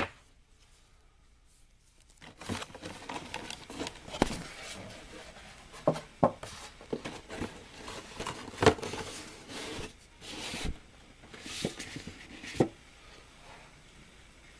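Plastic parts bags and the cardboard kit box being handled as a plastic model kit is packed back into its box: irregular rustling and crinkling with scattered light clicks and knocks, starting after about two seconds of quiet.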